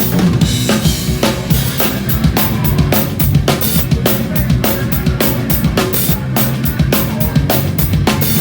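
Hardcore punk band playing live, loud, with the drum kit driving a fast, even beat over sustained low bass notes.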